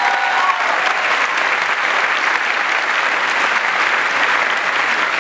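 Audience applauding, a steady, dense sound of many hands clapping.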